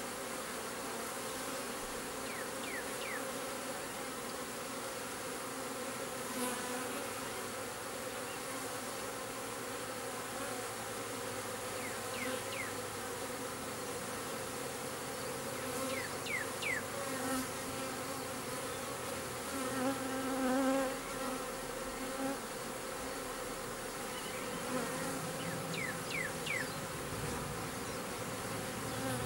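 A honeybee swarm buzzing steadily as it moves into a swarm trap box, with many bees in the air around the entrance. The buzz swells louder now and then.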